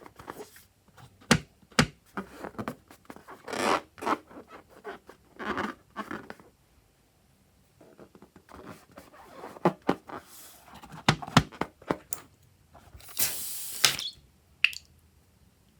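Slime being worked by hand: irregular sticky clicks, crackles and scrapes, with a short hissing burst near the end.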